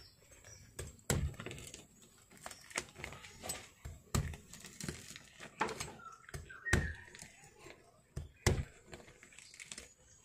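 Scattered knocks, thuds and crackles of a durian being handled on a wooden table and pried open with a knife along its spiky husk.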